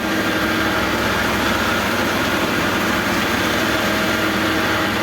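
Heavy machinery engine running steadily at an even pitch.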